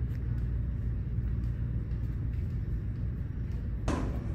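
Steady low rumble of background noise in a hallway, with a brief sharp sound about four seconds in.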